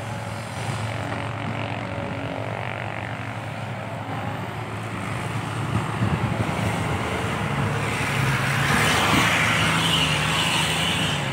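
Isuzu Deca dump truck's diesel engine running through new triple exhaust tips, a steady low exhaust note that grows louder from about six seconds in as the engine is worked harder, with a rushing hiss added near the end.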